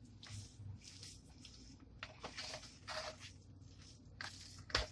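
Faint wet squishing and scraping, in irregular short bursts, as mayonnaise is mixed into chopped boiled chicken for chicken salad.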